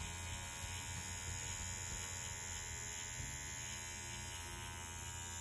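Bronc V10 Hummingbird rotary tattoo machine running steadily at 7 volts with a needle cartridge fitted: its Swiss motor gives an even, quiet hum.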